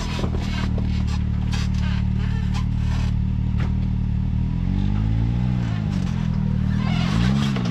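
Side-by-side UTV engine working up a rocky ledge, running steadily and revving up and back down twice, once about five seconds in and again near the end. Sharp knocks and clatter of rock against the machine come through in the first half.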